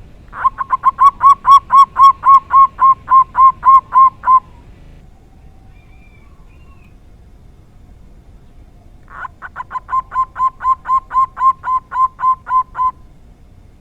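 Zebra dove (perkutut) cooing in two bouts of rapid repeated coos, about four notes a second. The first bout lasts about four seconds; the second starts about nine seconds in. It is the song style the uploader calls 'dor tak kowor kowor' and rates as rare.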